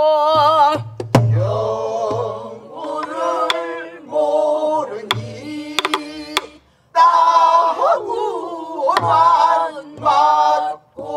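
A small group singing a pansori phrase together, a man's voice among women's, with strokes on a buk barrel drum: dull low thumps on the drumhead and sharp stick clicks on the drum's body.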